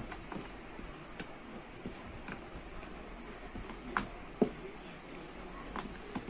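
A utensil clicking against a bowl while dry seasoned flour is mixed: scattered, irregular light clicks, the loudest about four and a half seconds in.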